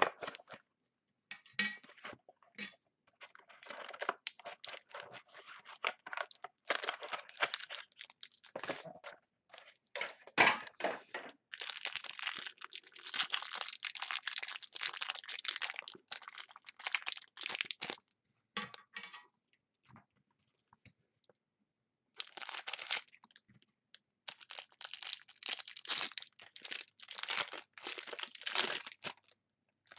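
Plastic wrapping on a trading-card box and its pack crinkling and tearing as it is unwrapped by hand, in irregular bursts of rustling, with a pause of about two seconds about two-thirds of the way in.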